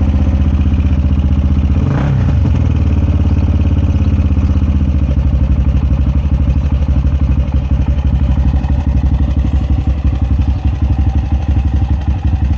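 Honda XR400's single-cylinder four-stroke engine running at idle on its freshly rebuilt FCR39 pumper carburetor, warming up after a cold start. There is a brief change in the note about two seconds in, and the individual firing pulses grow more uneven in the second half.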